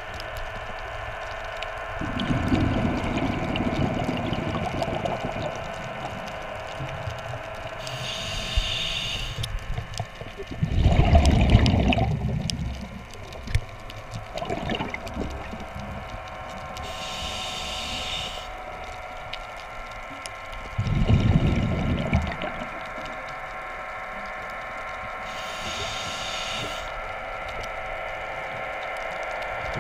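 Underwater sound of diver propulsion vehicles (underwater scooters) running: a steady electric-motor whine over water noise. Louder low rushing rumbles come three times: near the start, about a third of the way in and about two-thirds in.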